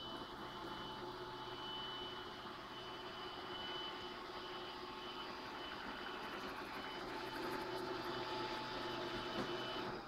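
iMaid LR500 robot vacuum cleaner running: a steady whir of its suction motor and brushes, with a thin high whine that comes and goes, as it moves from carpet onto a tile floor.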